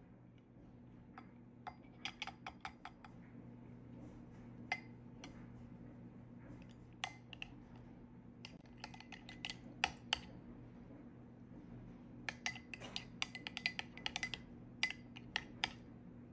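Metal spoon clinking against a small glass bowl while stirring a sauce, in quick runs of taps with short pauses between. A low steady hum runs underneath.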